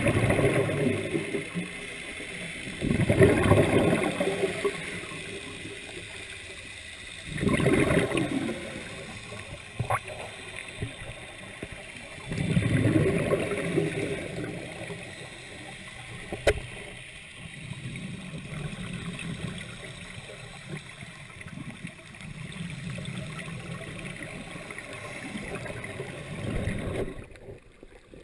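Scuba diver's exhaled bubbles gurgling out of the regulator underwater, in bursts of a second or so about every four to five seconds, weaker in the second half and dropping away near the end.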